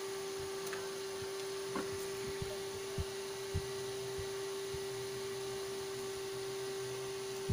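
A steady electrical hum at one pitch, with a few faint clicks from handling the cable and a plastic squeeze bottle.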